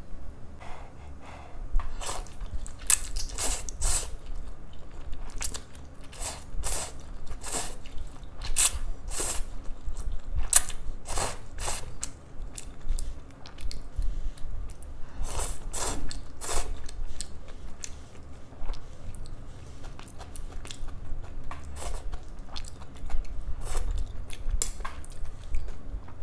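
A person eating thick stir-fried noodles close to a microphone: chewing and biting, many short, irregular mouth sounds.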